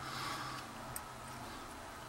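Quiet handling of a padlock: a faint scrape and one light click about a second in, from a metal probe pushing at a stuck retaining pin that will not move.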